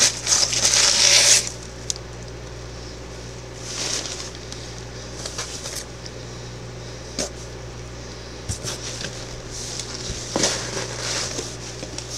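Packing filler rustling and scraping in a cardboard box as hands dig through it: a loud burst of rustling in the first second and a half, then quieter scattered rustles and a few light knocks. A steady low hum runs underneath.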